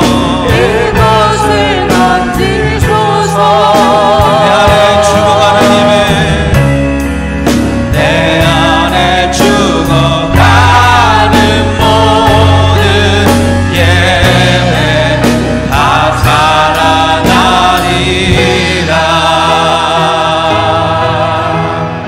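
Live contemporary Christian worship song: a man sings the lead into a handheld microphone, with sustained notes and vibrato, over a band with a steady drum beat and bass.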